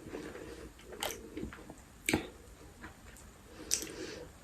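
Close-miked eating sounds: chewing and biting, with three sharp wet mouth clicks about a second or so apart.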